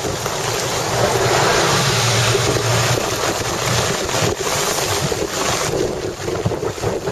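Steady hiss of heavy typhoon rain, with wind buffeting the microphone.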